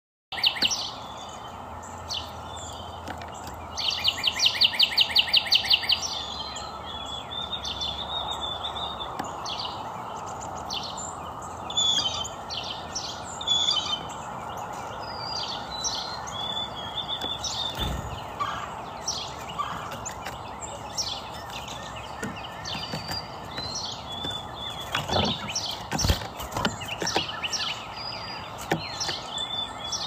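Songbirds chirping with many short, high notes over a steady background hiss, and a loud, fast trill lasting about two seconds around four seconds in. A couple of low thumps come later.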